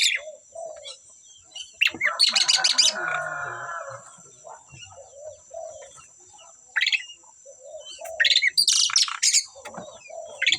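Asian pied starlings (jalak suren) calling: a loud harsh call about two seconds in that runs into a chattering warble, then shorter sharp calls in bursts near the middle and toward the end, with soft low notes in between.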